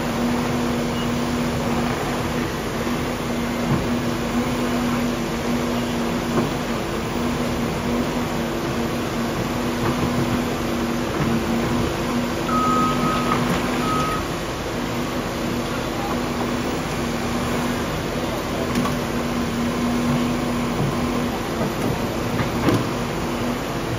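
Caterpillar 335F excavator's diesel engine running steadily under load as it digs in a muddy trench, a constant low hum over the machine noise. A few short high beeps sound a little past halfway.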